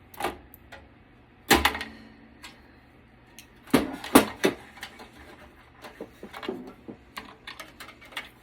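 Knocks and clicks of a desktop computer's parts being handled while it is taken apart. A sharp knock about a second and a half in rings briefly, a cluster of knocks follows around four seconds in, and lighter ticks come near the end.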